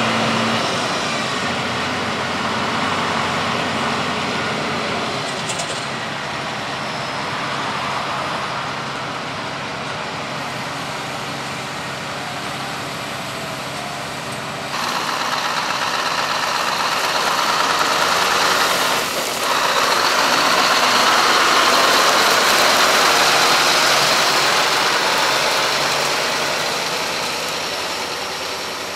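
Heavy farm machinery engines running steadily; about halfway through the sound changes suddenly to a louder, noisier machine running.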